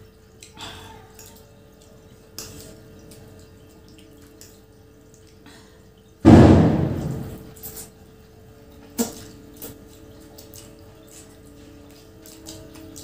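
Quiet eating of noodles, with forks clicking now and then on the plates. About six seconds in comes a single loud firecracker bang that dies away over a second or so.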